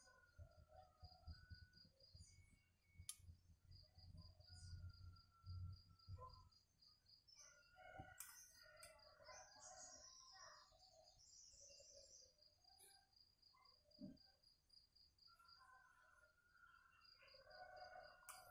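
Near silence: a faint background of insects chirping in a steady rapid pulse, with a few scattered bird chirps and light taps.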